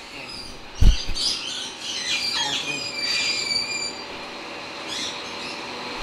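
Caged birds in an aviary chirping and whistling, with many short thin high calls overlapping. There is one loud thump about a second in.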